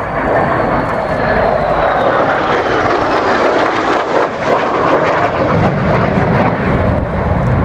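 Lockheed Martin F-35 Lightning II's single Pratt & Whitney F135 jet engine, loud and steady as the fighter passes close in a tight, high-g turn. A faint high whine falls in pitch over the first couple of seconds, and a deeper rumble builds in the last couple of seconds.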